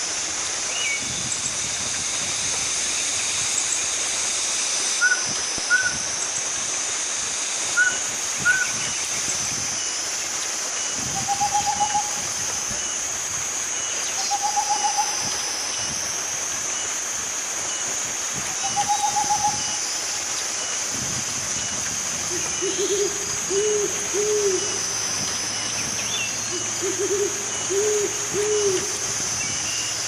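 Owl hooting: from a little past the middle, groups of three to four short, low hoots repeat every few seconds. A steady high-pitched hiss runs under it. Earlier come a few paired short chirps and three separate trilled notes, each about a second long.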